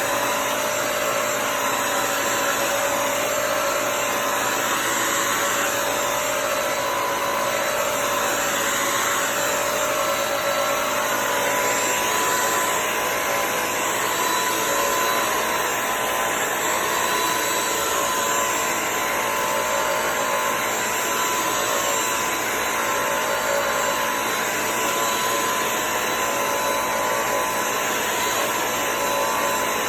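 Bissell CrossWave Pet Pro wet-dry floor cleaner running steadily while scrubbing a dried-on spot on the floor: a loud, even motor and suction whine over a rushing hiss.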